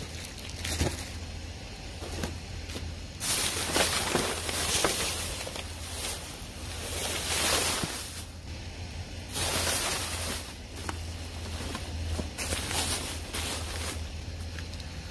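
Clear plastic trash bags rustling and crinkling in several bursts as they are grabbed and pulled open, with a few small knocks and a low steady hum underneath.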